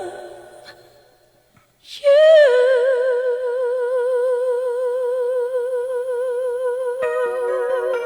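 Background music: a slow sung ballad. A sung phrase fades out, there is a second of near silence, then one long held sung note with vibrato, and soft accompaniment comes in near the end.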